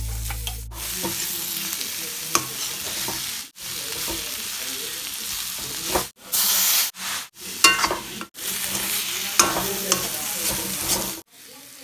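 Baby corn and onions sizzling in oil in a frying pan while a spatula stirs them, scraping and clicking against the pan. The sizzle breaks off abruptly several times.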